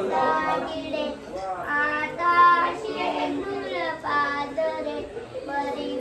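A young child chanting a devotional prayer verse (shloka) to Lord Ganesh in a sing-song melody, holding some notes.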